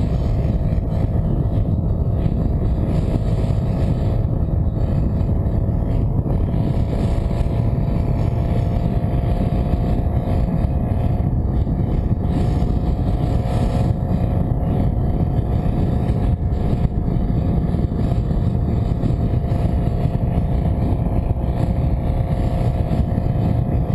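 A vehicle engine running steadily at constant speed: a continuous drone whose pitch creeps up slightly.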